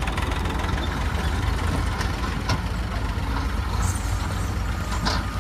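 Diesel engines of a farm tractor and a JCB backhoe loader running steadily: a low, even drone, with a couple of faint clicks about two seconds in.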